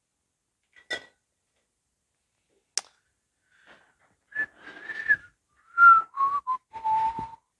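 A person whistling a short run of notes that step down in pitch, with breath audible around them, after two sharp clicks.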